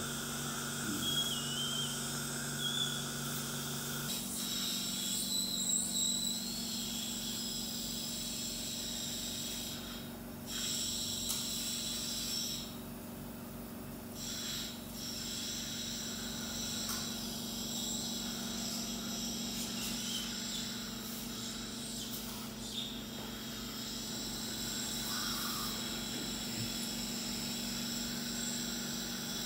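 Steady hiss and hum of dental surgery equipment, with a few faint wavering whistles in the first several seconds; part of the low hum drops out about four seconds in.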